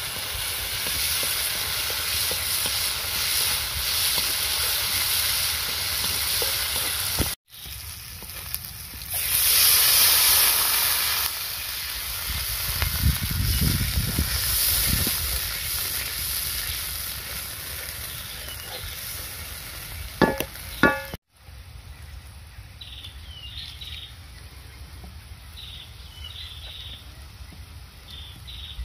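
Chili paste sizzling in hot oil in a wok, stirred with a wooden spatula; about ten seconds in the hiss turns louder as liquid goes in, then the sauce simmers. A few sharp knocks of the spatula against the wok come near the end, and then the frying sound drops much quieter.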